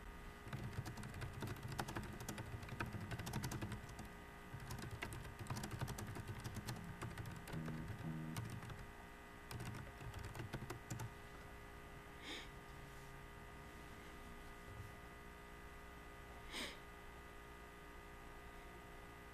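Faint typing on a computer keyboard: a quick run of keystrokes that stops after about ten seconds.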